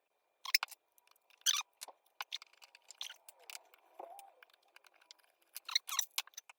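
Irregular small clicks and squeaks of hand work on a range outlet and its wiring.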